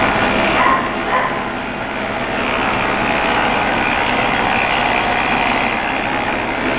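JET 13" x 40" metal lathe running steadily under power, a continuous mechanical whir.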